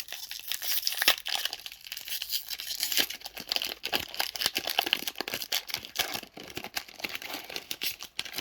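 A foil Pokémon booster pack wrapper being torn open and crinkled by hand, a dense run of tearing and crackling with many sharp ticks.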